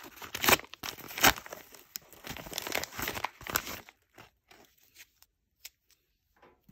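Kraft paper mailer bag being torn open by hand, with crinkling and tearing paper for about four seconds. After that come only a few soft handling clicks.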